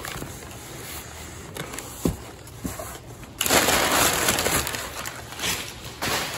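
Crumpled brown kraft packing paper rustling and crinkling as it is handled in a cardboard shipping box, with a light knock about two seconds in. About three and a half seconds in, handfuls of the paper are pulled out and the rustling turns loud.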